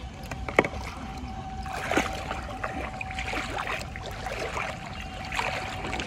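Shallow water splashing and sloshing in irregular bursts as someone wades and handles things in it, with two sharp knocks, the first about half a second in and the second about two seconds in. A faint steady thin tone runs underneath.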